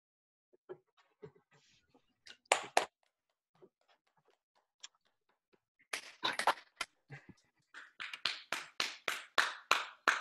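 Participants on a video call clapping after a poetry reading: a few scattered claps at first, then from about six seconds in a steady run of hand claps at about four a second.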